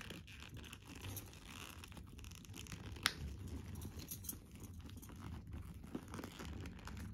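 Black leather handbag being handled while its side closures are fastened: rustling and scraping of leather and its contents, with light clicks of metal hardware and one sharp click about three seconds in.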